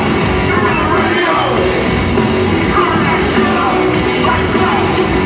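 Rap-rock band playing live in an arena: loud electric guitar and a full band under shouted vocals.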